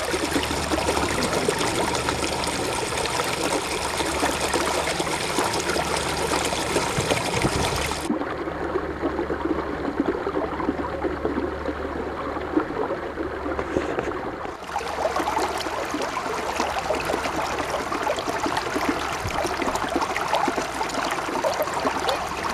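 River water flowing: a steady rushing of moving water. About 8 seconds in it turns duller, losing its hiss, and it brightens again about 6 seconds later.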